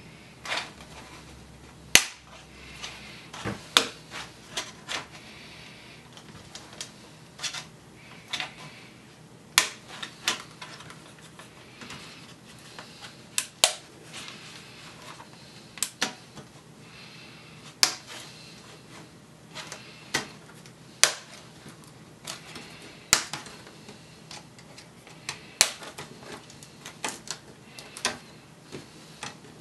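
Plastic screen bezel of a Dell Latitude 3540 being prised off by hand, its retaining clips snapping loose one after another. Sharp clicks at irregular intervals, the loudest every two seconds or so, with smaller ticks and creaks of the plastic between.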